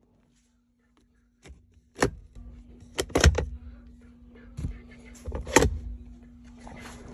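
A handful of sharp knocks and thumps, with handling noise, as a hand bumps and works around a car's rear console. The first second and a half is near silent, then the knocks come irregularly, the loudest about two, three and five and a half seconds in, over a faint steady hum.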